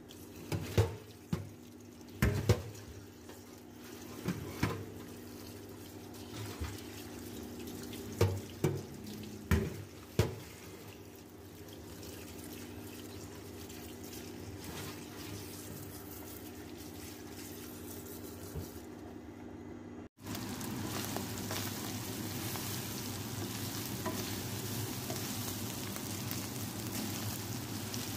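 Tap water running onto penne in a metal colander in a stainless steel sink, with several sharp knocks in the first ten seconds. About two-thirds of the way in it cuts abruptly to chicken strips sizzling in a wok as they are stirred, a steady hiss.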